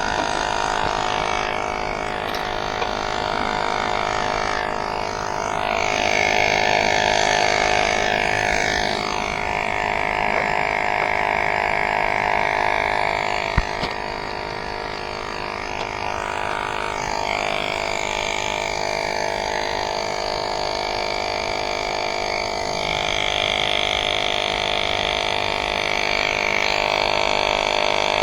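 E-bike rear hub motor spinning the wheel, a steady droning whine with shifting overtones, and a single sharp click about halfway through.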